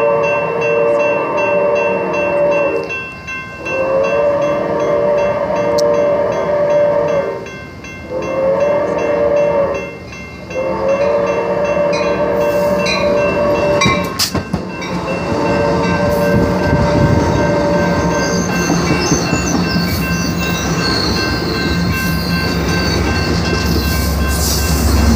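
Amtrak passenger train's multi-chime horn sounding in the long, long, short, long grade-crossing pattern, then one more blast. Afterwards comes the loud steady rumble of the train passing.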